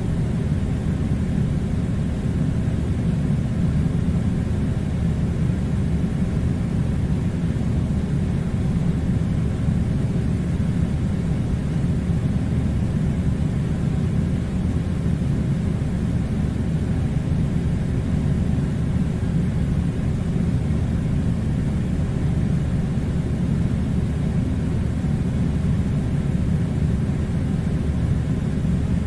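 Air conditioner running steadily: an even, low rush of noise with a faint steady tone above it.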